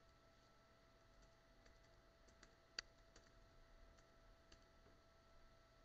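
Faint computer keyboard keystrokes as a password is typed: about a dozen light, irregular clicks, one louder near the middle.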